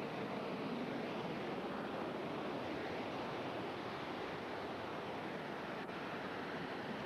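Steady rushing noise with no distinct events, like wind buffeting a camcorder microphone.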